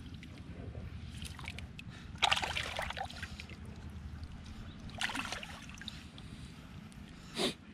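Shallow seawater sloshing and splashing, in two louder bursts about two seconds in and five seconds in, over a steady low rumble.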